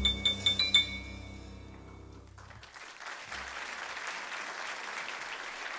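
A jazz trio's final notes: a quick run of repeated high piano notes over a held double-bass note, dying away in the first couple of seconds. Then the audience applauds from about three seconds in.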